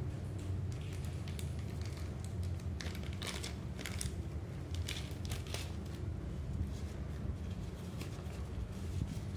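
Clear plastic zip-lock bag crinkling and rustling in the hands as it is pulled open and paper banknotes are drawn out, in irregular bursts busiest from about three to six seconds in, over a steady low hum.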